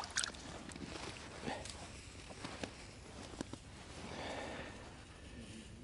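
Light scattered clicks and rustles of hands working fishing gear at an ice hole, with a short soft scrape about four seconds in.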